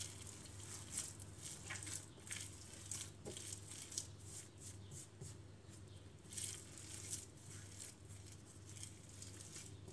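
Hands kneading a soft, sticky yeast dough on a floured countertop: a quiet, irregular run of short handling noises.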